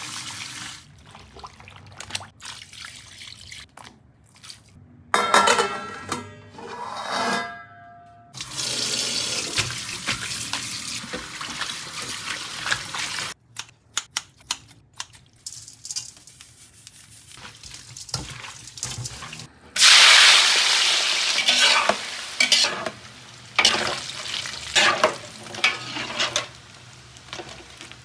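Kitchen prep sounds: tap water running over raw pork intestines in a stainless steel colander in the sink, sharp clicks of kitchen scissors cutting them, and oil sizzling as the pieces deep-fry in a wok.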